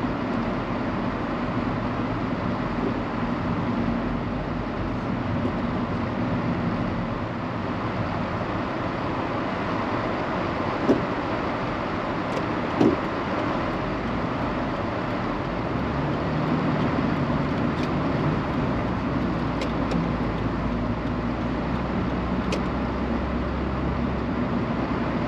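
Steady road and tyre noise with a low engine hum inside a moving car's cabin. Two sharp knocks about two seconds apart stand out near the middle.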